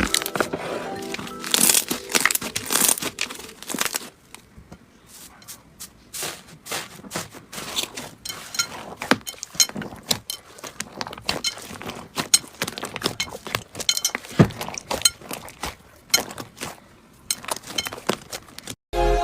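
Slime being squeezed and pressed by hand, making dense crackling and popping clicks. A little music fades out in the first second.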